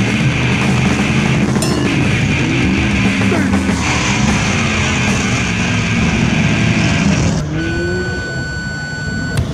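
Heavy rock music with distorted guitars playing at a loud, even level.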